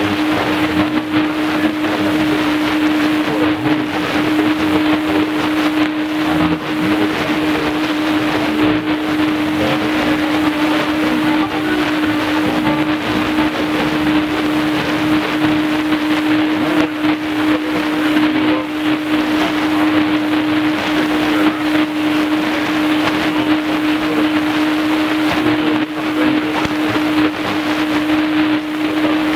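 Shortwave static hissing from a Tecsun PL-310ET portable receiver tuned to a weak AM broadcast, with a steady low heterodyne whistle laid over the noise. Any programme audio is buried in the static.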